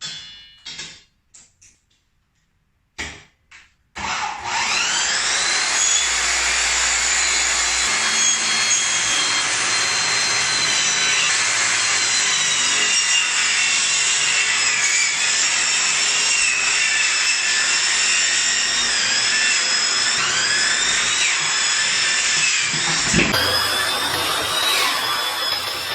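A few light clicks, then about four seconds in an electric circular saw mounted under a homemade saw table starts and runs loudly, its high whine wavering and dipping as it cuts wood. Near the end there is a knock and the sound changes.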